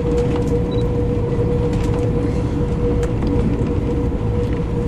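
Passenger train running along the track, heard from on board: a steady low rumble with a constant droning tone and scattered light clicks.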